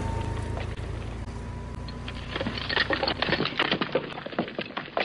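Demolition debris breaking and falling. A low rumble dies away, then from about two seconds in comes a quick, irregular run of sharp cracks and clatters.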